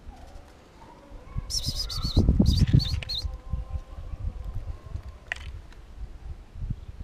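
A quick run of high, wavering bird chirps about two seconds in, over low thuds and scuffing as an aluminium food tray is picked up and moved over stone paving.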